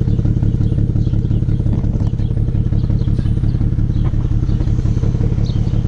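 BMW 335xi's N54 twin-turbo inline-six idling rough and uneven while still cold, with a misfire. The diagnostic computer flagged misfires on coils 4 and 6, and the rough idle smooths out once the engine warms.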